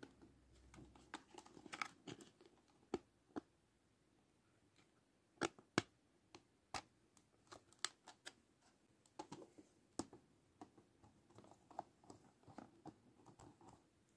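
Hard plastic toy stove parts being handled by fingers: scattered light clicks and taps of plastic on plastic, the loudest two close together about halfway through.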